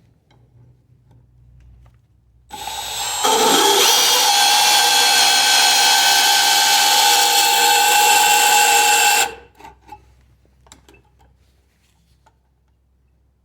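A handheld power tool starts about two and a half seconds in, spins up with a rising whine, runs loud and steady for about six seconds, then cuts off abruptly. A few faint knocks follow.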